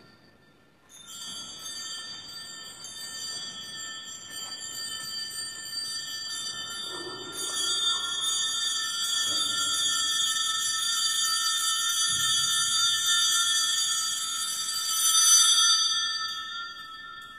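Altar bells, a cluster of small hand bells, shaken in a continuous ringing that starts about a second in, grows to its loudest near the end and then dies away. This is the ringing that marks the blessing with the monstrance at Eucharistic benediction.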